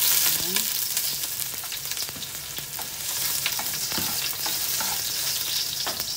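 Chopped garlic sizzling in hot cooking oil in a metal pot, loudest at first, with a metal spoon clicking and scraping against the pot as it is stirred.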